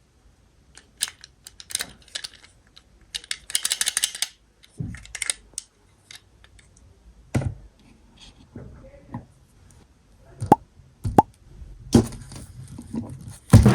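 Small clicks, taps and knocks of a chocolate surprise egg and its plastic toy capsule being handled and opened, with a brief crinkling rustle about three seconds in.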